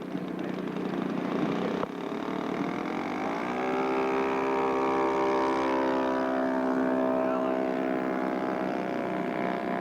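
Radio-control scale model airplane's engine opening up for the takeoff run: it runs at low throttle, rises in pitch about three seconds in as the throttle is pushed forward, then holds a steady high-power drone.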